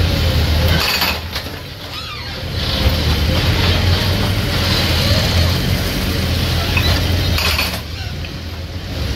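Excavator-mounted hydraulic breaker hammering into a tiled concrete wall, over the steady running of the excavator's diesel engine. The hammering eases off briefly twice, about a second in and again near the end.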